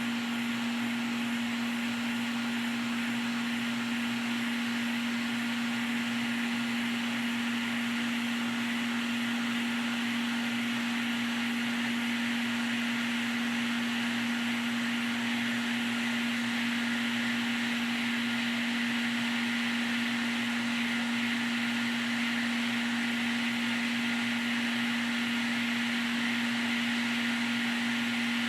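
Hot air rework station blowing steadily, a continuous hiss of air with a steady low hum, heating a Nintendo Switch mainboard to desolder its microSD card connector.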